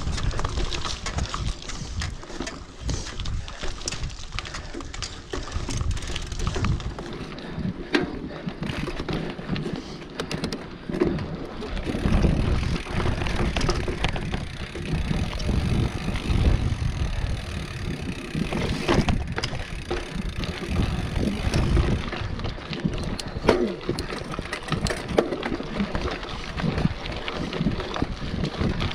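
Mountain bike, a 29-inch hardtail, riding fast down a dirt trail: tyres rumbling over the ground and the bike rattling, with frequent sharp knocks from roots and rocks. Wind buffets the microphone.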